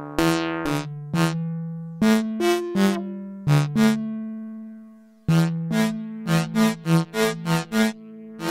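Novation Circuit Tracks synth engine playing a preset as a sequenced melody of short pitched notes, each starting sharply and dying away. The notes thin out and fade almost to nothing about four and a half seconds in, then a quicker run of about three notes a second starts just after five seconds in.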